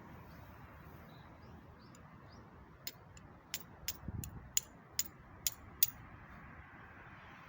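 A series of about eight sharp clicks, two or three a second, with a soft low thud partway through, over a steady background noise.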